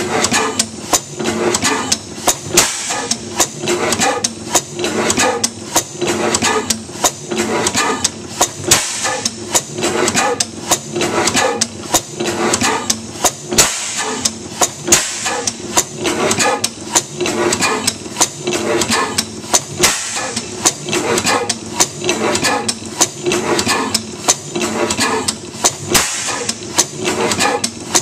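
15 HP St. Mary's sideshaft hit-and-miss gas engine running, a steady rhythmic clatter of its mechanical valve gear and drop-cam igniter.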